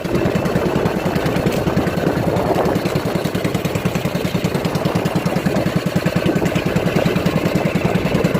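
Small engine running steadily with a rapid, even chugging pulse.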